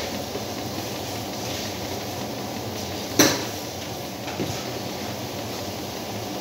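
A steady kitchen hum and hiss, with one sharp, ringing clink of kitchenware about three seconds in and a lighter knock about a second later.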